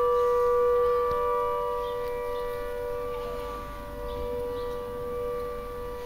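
Air raid siren at an explosives factory, sounding a steady two-note chord that slowly grows quieter, the factory's warning for its explosives testing.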